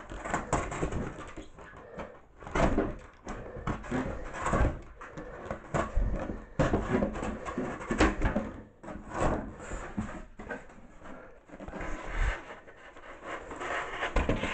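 Utility knife cutting and scraping through an extruded polystyrene (Styrodur) foam board in irregular strokes, mixed with low knocks and rubbing as the foam board is handled. Picked up by an overloaded camera microphone.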